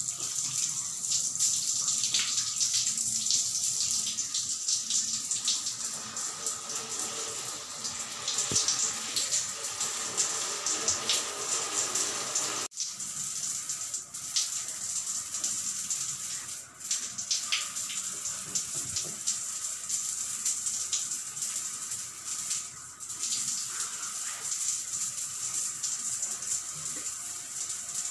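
Water running and splashing steadily in a tiled bathroom while someone bathes, with a momentary break a little under halfway through.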